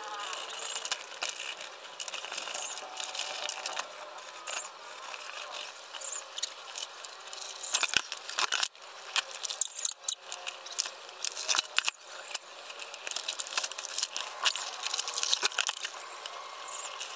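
Hand-washing a backpack in a plastic basin of soapy water: a stiff plastic scrub brush scraping over the wet fabric, with water sloshing and dripping as the bag is lifted and turned, in a busy run of small scrapes and splashes.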